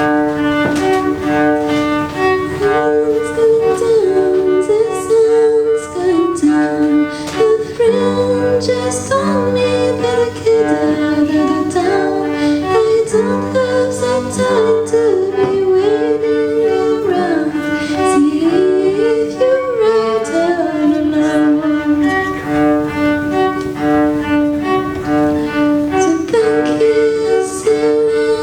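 Cello playing a slow melody over a steady held note, with a deeper bass line joining about eight seconds in.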